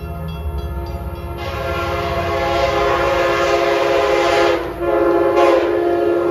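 Amtrak Acela high-speed train sounding its multi-chime horn as it approaches: a long chord from about a second in, a brief break near five seconds, then another long blast. A steady low rumble of the approaching train runs underneath.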